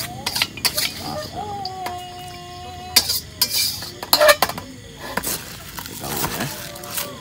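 Metal utensils clinking and scraping: a spatula knocked and scraped against a wok, then a metal spoon stirring soaked raw rice in a plastic basin near the end. The clinks come in several sharp clusters.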